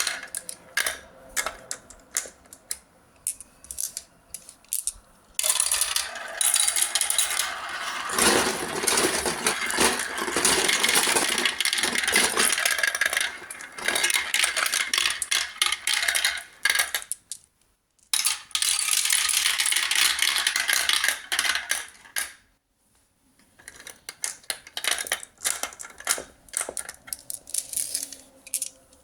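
Marbles rolling and clacking along a marble run. Scattered clicks at first, then a long dense rattle of many marbles from about five seconds in. It breaks off briefly twice and ends in scattered clicks again.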